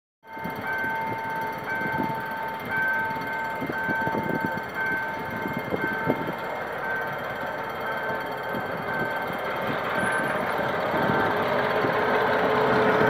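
Level-crossing warning alarm sounding in a steady, even pulse a little over once a second, while the diesel engine of an approaching GM G22W locomotive grows steadily louder toward the end.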